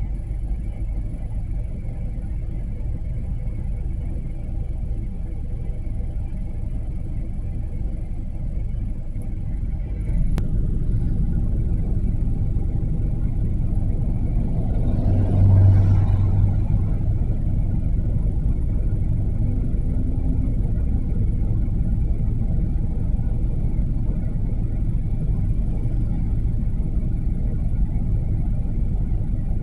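Steady low rumble of road traffic heard from inside a car waiting at an intersection, swelling about halfway through as a city bus passes close alongside.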